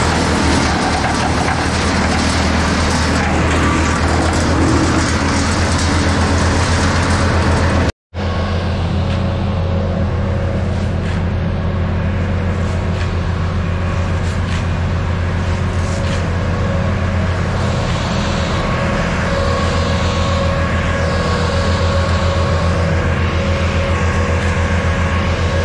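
Tree chipper engine running loud and steady. For the first several seconds branches are going through it, with dense noisy grinding over the drone. After a momentary dropout about eight seconds in, it runs on steadily with less of the high grinding noise.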